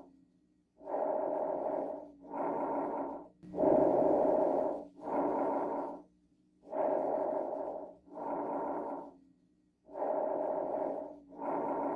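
Recorded lung sounds from auscultation: four breathing cycles, each a noisy inhale followed after a brief pause by a slightly shorter exhale, about one cycle every three seconds.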